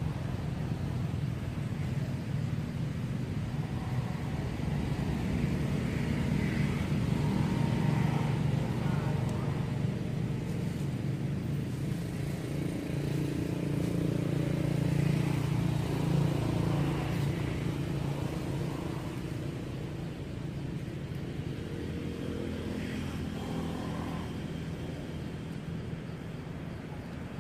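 Low, steady engine rumble of a motor vehicle, swelling through the middle and easing off toward the end.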